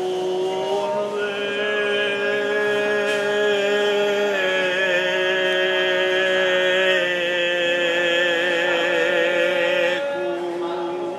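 A man singing slow, long held notes, moving to a new note every few seconds, with a wavering vibrato on the later notes.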